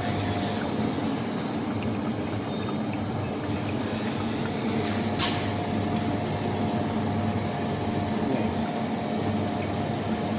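Hot water poured in a steady stream onto coffee grounds in a V60 dripper, over a steady hum, with a single click about five seconds in.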